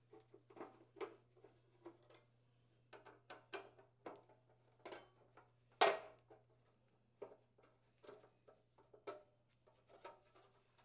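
Screwdriver backing sheet-metal screws out of a PTAC subbase's junction box cover: faint scattered clicks and scrapes of the tool and screws on the metal, with one louder clack about six seconds in, over a steady low hum.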